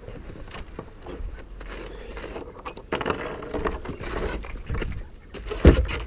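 Scattered knocks and small metallic clinks from gear being handled, with one loud heavy thump about five and a half seconds in.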